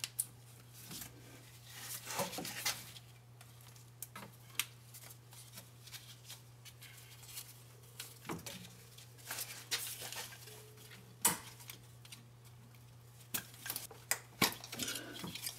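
Scattered faint clicks and clinks of hands working plastic electrical connectors loose around a transfer case, over a steady low hum.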